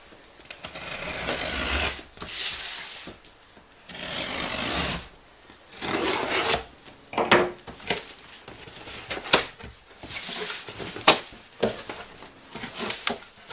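A blade slicing through the packing tape along a cardboard box's seams in four long scraping strokes, then the cardboard flaps being pulled open with sharp cracks and rustling packing.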